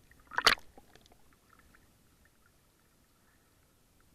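Seawater sloshing against a camera held at the surface, one short splash about half a second in, then a few faint ticks of water and near quiet.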